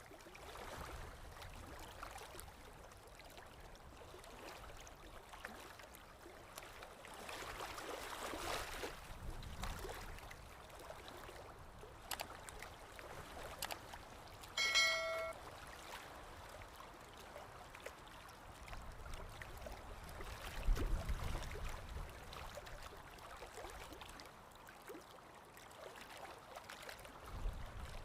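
Seawater washing and trickling along a shore, swelling for a moment about a third of the way in. A brief high pitched tone sounds about halfway through, and there are low rumbles later on.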